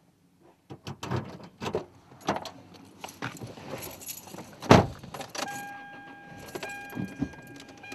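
Someone getting into a car: keys jangling, clicks and rustling, then a single loud thump about halfway through as the driver's door shuts. From just after that a steady electronic tone sounds in the cabin, like a car's warning chime.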